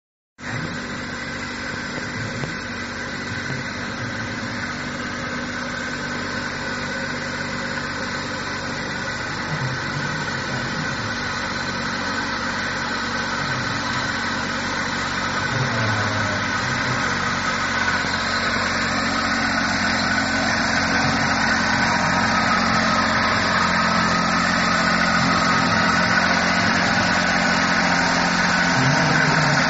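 Kubota compact tractor's diesel engine running steadily at an even speed, growing gradually louder as the tractor draws nearer.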